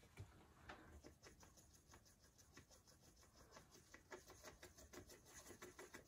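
Faint, rapid scratchy ticking of a paintbrush's bristles scrubbing in a plastic palette well, working at old dried alcohol ink, the ticks getting denser in the second half.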